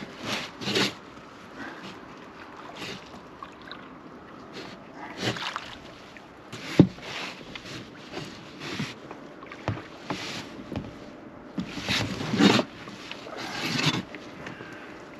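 Irregular splashing and sloshing water, with rustling and a sharp knock against an inflatable boat about seven seconds in, as a hooked wels catfish is brought alongside and landed.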